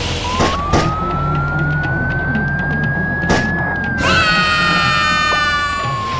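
Police car siren wailing slowly up and then down over a low engine rumble, with a few sharp knocks in the first seconds. About four seconds in, a loud, buzzy held tone cuts in on top.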